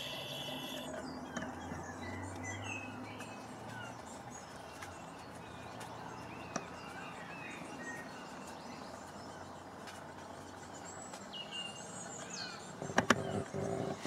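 Outdoor garden ambience with scattered short chirps and calls of small birds over a low, steady background rumble. A few sharp knocks near the end.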